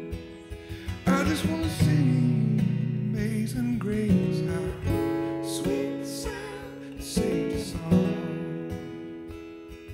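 Acoustic guitar strummed while a man sings a worship song, holding long notes.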